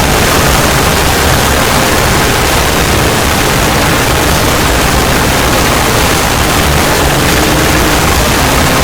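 Loud, steady noise like static or a rushing hiss, with no tune or tone in it.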